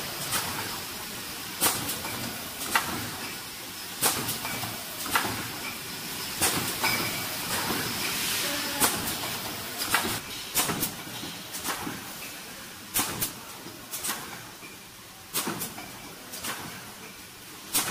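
Automatic bottle screen printing machine running: sharp mechanical clacks and knocks, roughly one every second, over a steady hiss.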